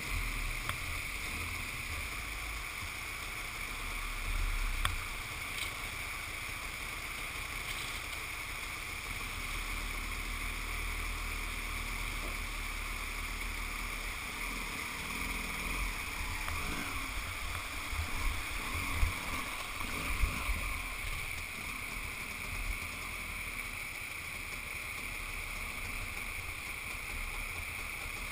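Steady rush of a rocky mountain creek, with wind rumbling on the microphone and a few sharp knocks about two-thirds of the way through.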